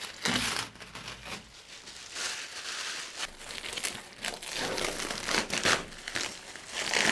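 Plastic release film being peeled off cured epoxy repairs on a carbon/Kevlar kayak hull and crumpled in the hand, with irregular crinkling and crackling. The film comes away easily, not stuck to the cured resin.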